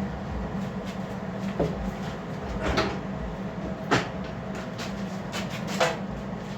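About four sharp knocks of steel parts against each other as bucket plates are fitted together, the third the loudest, over a steady low hum.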